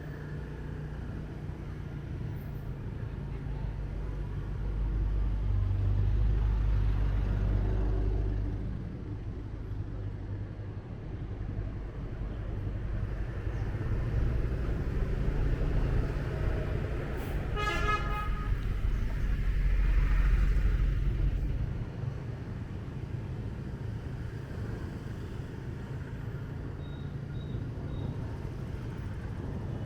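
Motorbike engine and street traffic rumbling steadily, swelling louder twice. A short vehicle horn toot sounds about two-thirds of the way through.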